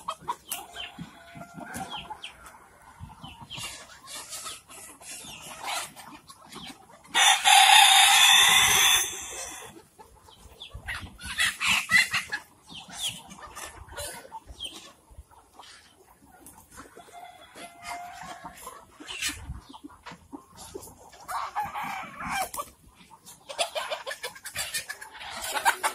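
A flock of Kadaknath chickens clucking, with a rooster crowing loudly once, for about two seconds, about seven seconds in.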